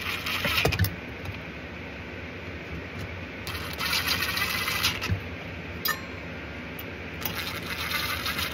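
Cordless brushless impact driver running in three short bursts: one ending about a second in, one around four seconds, and one near the end. It is snugging small 4 mm screws into a diesel heater's combustion chamber on a low torque setting.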